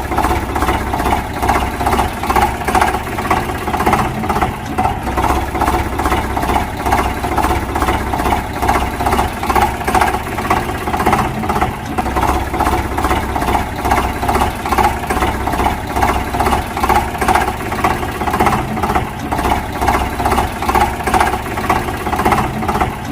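A steady engine sound with a regular, even pulse, like an idling motor, starting abruptly and cutting off abruptly near the end.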